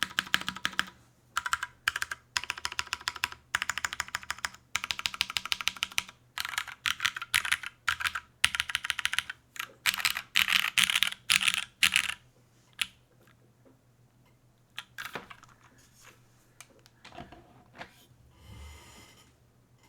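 Typing on a Plywrks Spyder custom mechanical keyboard: lubed and filmed Cherry MX Brown tactile switches on a top-mounted carbon-fibre plate with GMK keycaps, clacking in rapid bursts of keystrokes. The typing stops about twelve seconds in, leaving only a few scattered clicks.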